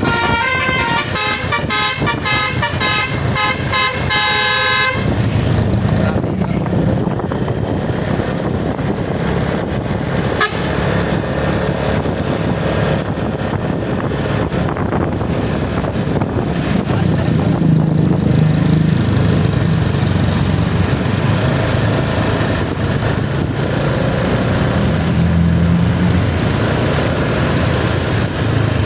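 Bus telolet horn playing a quick melody of alternating notes, cutting off about five seconds in; then the steady rumble of heavy engines and traffic, swelling a couple of times.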